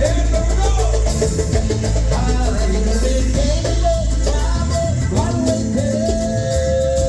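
A live band playing: drum kit and bass with guitar, and a melody line gliding over them that settles into two long held notes near the end.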